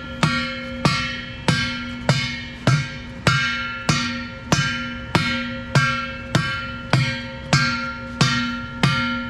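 A long-handled plastic-faced mallet striking a freezer-chilled bearing race down into the steel hub of a Caterpillar D10R final drive: about fifteen even blows, a little over half a second apart. Each blow sets the big hub ringing with a metallic tone that hangs on between strikes.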